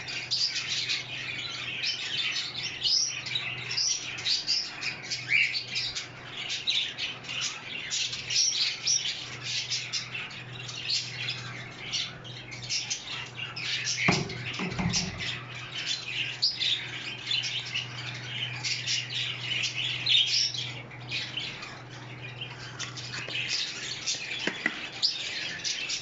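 A room full of small cage birds chirping and squawking continuously, with many overlapping short high calls. A steady low hum runs underneath, and there is a brief dull knock about halfway through.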